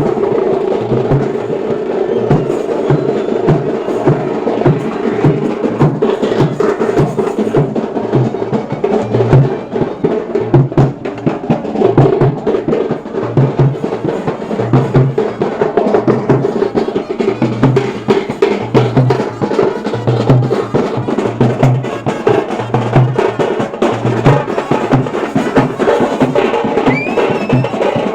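Loud drumming with rapid strokes and repeated deep beats over a sustained tone.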